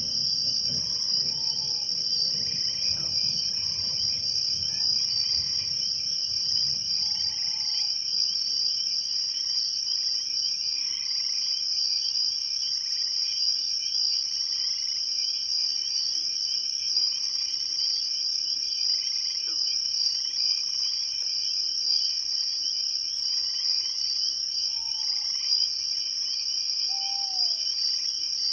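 Crickets trilling in a steady night chorus, with a short high chirp about every three seconds and a few short falling calls.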